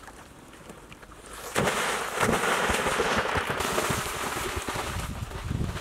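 A sudden heavy splash about a second and a half in, then water churning and spraying: a person plunging off a water slide into a swimming pool.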